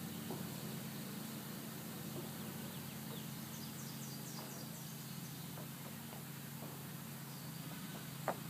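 Outdoor background with a steady low hum under an even hiss, a quick run of about five high chirps from a small bird about three and a half seconds in, and one sharp click near the end.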